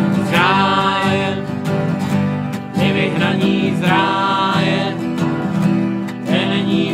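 Acoustic guitar strummed steadily while two men sing a Czech folk song in three short phrases.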